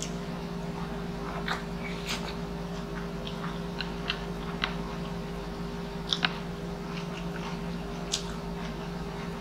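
Close-miked chewing of noodles, with wet mouth smacks and sharp clicks now and then, over a steady low hum.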